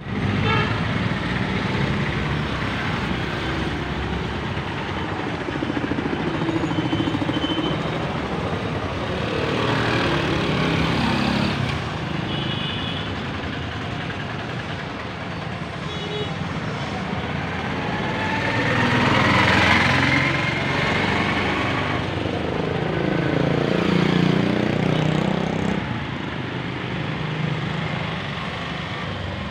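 Road traffic: motorbikes, scooters and cars passing along a town street, their engines swelling as they go by, loudest about 20 and 24 seconds in, with a few short high beeps.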